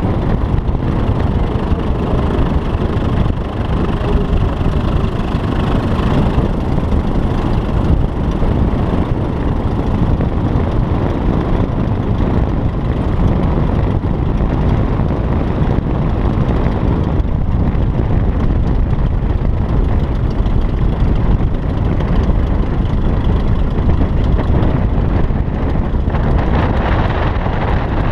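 Steady low rumble of engine noise and wind buffeting on a microphone mounted on a moving car's rooftop landing platform, beneath a Piper Cub.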